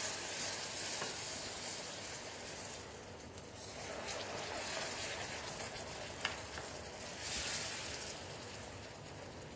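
Hot caramel sizzling and bubbling in a stainless steel saucepan as cold liquid cream is poured in slowly, with a wooden spoon stirring through it. There is one sharp knock about six seconds in, and the hiss dies down near the end.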